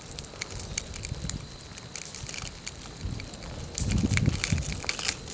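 Advancing pahoehoe lava flow crackling with scattered sharp ticks and pops. A louder low rumble comes in about four seconds in.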